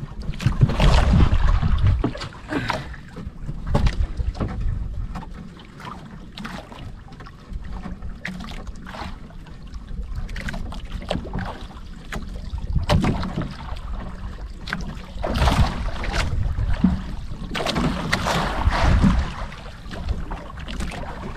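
Wind buffeting the microphone over water slapping and splashing against the hull of a small outrigger boat, with irregular knocks and splashes throughout.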